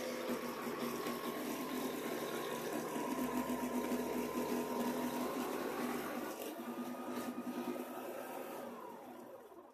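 Old jigsaw mounted under a homemade table, running steadily with a whine while its blade saws through a plywood sheet. Near the end the whine falls in pitch and fades as the motor is switched off and spins down.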